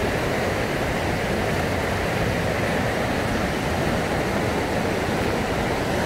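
Brule River rushing steadily over rocky rapids.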